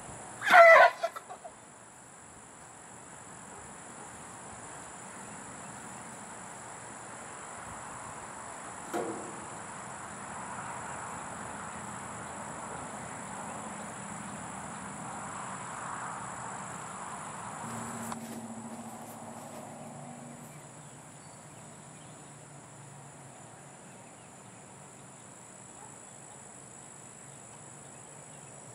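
A horse gives one loud, high squeal lasting about a second, the typical greeting squeal of horses meeting a stranger. A second, shorter sound follows about nine seconds in. A steady, high chirring of insects runs underneath.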